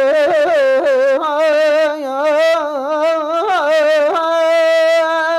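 A man's solo voice singing a line of Persian verse unaccompanied, with quick ornamented trills and turns, settling into a long held note about four seconds in.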